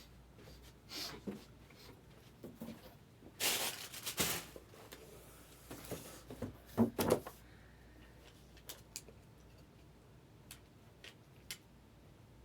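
Trading cards being handled: several short sliding and rustling sounds as cards are moved and sorted, the loudest about seven seconds in, then a few light taps and clicks.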